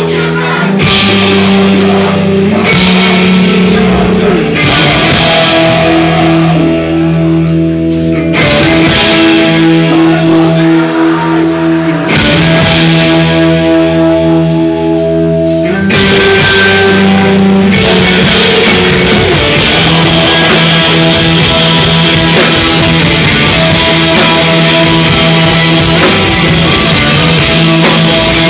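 Hardcore band playing live and loud: distorted electric guitar, bass guitar and drum kit. Cymbal crashes come every couple of seconds at first, and from about halfway on the cymbals ring without a break.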